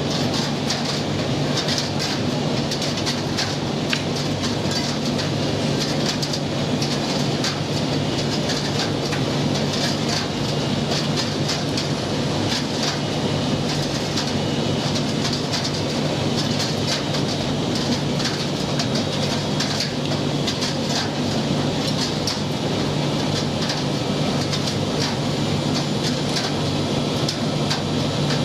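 Commercial gas tumble dryer running mid-cycle with its burner lit: a steady hum from the motor, fan and burner, with an irregular patter of small clicks as the load tumbles in the drum.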